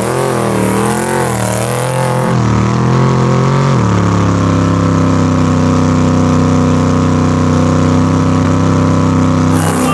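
Off-road race vehicle's engine revving up and down for about four seconds, then held at a steady high pitch.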